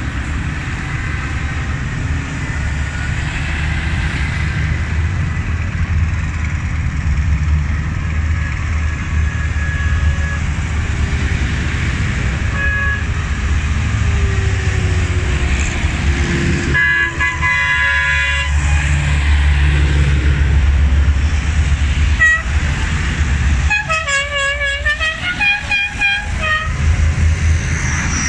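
Diesel farm tractors running as they drive past one after another, a steady low engine rumble. A horn sounds for about a second and a half about two-thirds of the way in, and near the end a horn plays a run of short toots that rise and fall in pitch.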